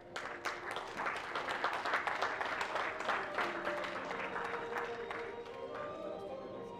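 Audience applauding, the clapping thinning out after about four seconds as background music with long held notes comes up.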